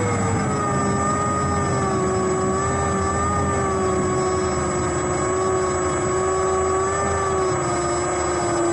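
Electric motor of an FMS 1400mm Pitts biplane RC model turning its propeller at low throttle, a steady whine heard from a camera mounted on the plane itself, dipping slightly in pitch about half a second in.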